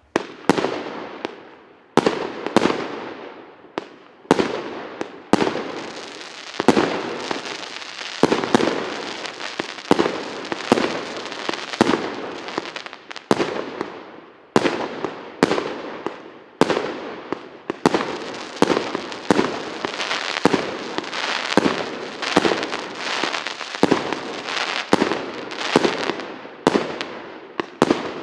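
Feuer Land EC680 36-shot, 1.25-inch-calibre firework cake firing a long series of shots and bursts, with a dense crackling from its crackling comets and crackling-chrysanthemum breaks. The shots come about a second apart at first, then faster and overlapping.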